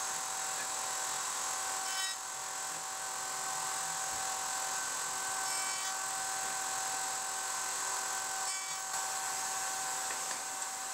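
Table-mounted router spinning a dovetail bit with a steady high whine, with a few brief changes in tone as test dovetail boards are fed on end across the bit. This is a light cleanup pass to loosen a joint that fit too tight.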